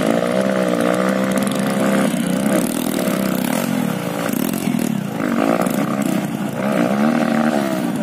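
Dirt bike engine revving hard under load as the bike climbs a steep, muddy rut, its pitch rising and falling unevenly as the rider works the throttle.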